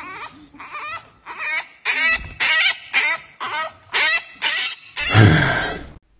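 An animal calling over and over in short pitched cries, about two a second, followed by one louder, harsher cry near the end that cuts off suddenly.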